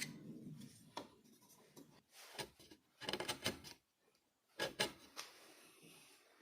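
A small hand tool being handled against wood: a few light knocks and short scraping, rubbing strokes, the longest clusters about three seconds in and again near five seconds.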